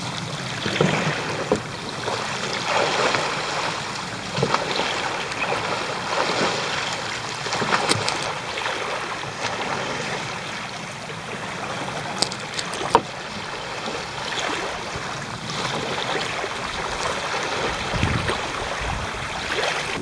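Water splashing and sloshing around a wooden sea kayak and its paddle as the kayaker rolls it over and back up, with a few short sharp clicks.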